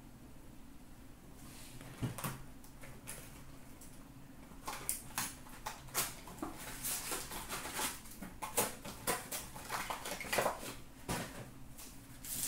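A sealed box of hockey trading cards being opened by hand and its packs taken out: crinkling of plastic wrap and foil, and scraping and tapping of cardboard. A knock comes about two seconds in, and the handling gets busier from about five seconds on.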